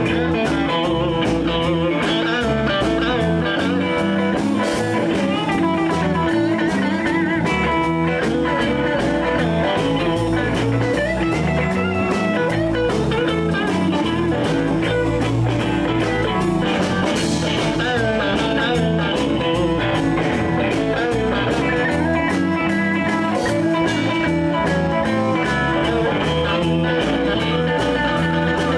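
Live blues band playing a swing blues in E: electric guitar solo lines over bass and drum kit.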